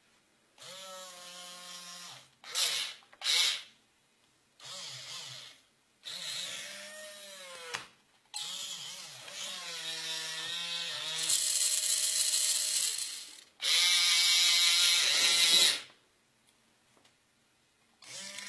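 Small geared motors of a hobby robotic arm whining in about eight start-stop bursts, each under a second to a few seconds long, the pitch sliding up and down as the joints move and halt.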